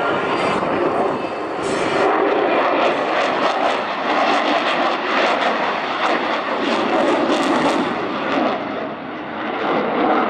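Sukhoi Su-35 jet fighter's twin afterburning turbofan engines making loud jet noise as it manoeuvres in flight. The sound swells and eases, with a dip near the end, and has a rough crackle in the middle.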